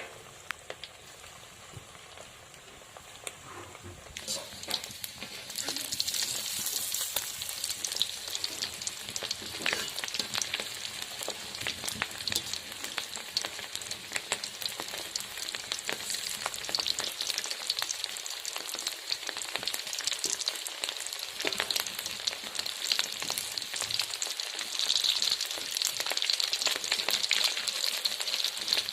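Egg and rice balls frying in hot oil, sizzling with many small crackles. The sizzle is softer for the first few seconds, then becomes louder and denser about four to five seconds in.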